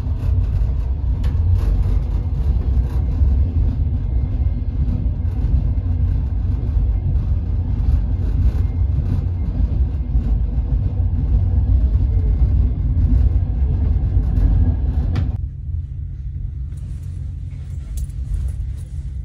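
Passenger train running along the line, a loud steady low rumble heard from inside the carriage. It drops a little and grows thinner about fifteen seconds in.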